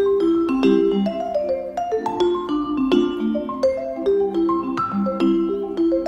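Background music: a quick melody of struck, ringing notes on a mallet instrument such as a vibraphone, several notes a second.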